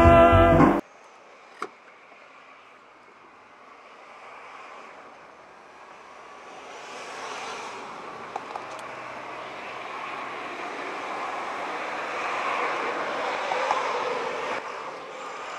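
Music cuts off under a second in, leaving outdoor background sound: a single sharp click, then a rush of passing vehicle noise that slowly builds over several seconds and drops back near the end.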